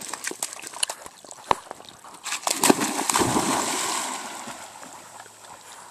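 Black Labrador plunging into a pond after a thrown stick: a big splash about two seconds in, then water churning as it swims off, fading away. A few light clicks come before the splash.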